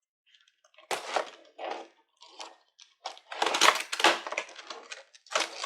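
Cardboard packaging being opened by hand: a few short crackling rips and scrapes, growing denser and louder from about halfway through.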